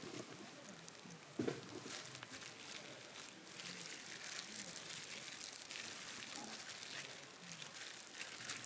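Light crinkling and crackling handling sounds, with one sharp knock about a second and a half in.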